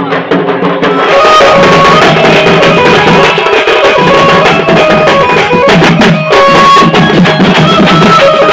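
Loud procession music: dense, fast drumming with a high melody line stepping up and down over it. It starts abruptly about a second in.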